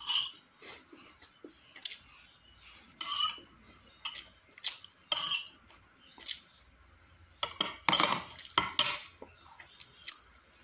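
Metal spoon and fork scraping and clinking against dinner plates while rice and chicken are scooped up, in irregular short strokes. They come thickest about three-quarters of the way through.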